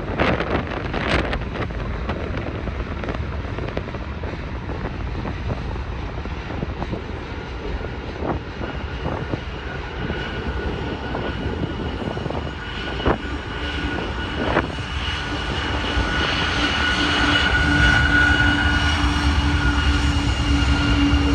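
Freight train's diesel locomotives drawing closer, a deep engine rumble that grows louder. A steady whine comes in about two-thirds of the way through. Wind gusts buffet the microphone.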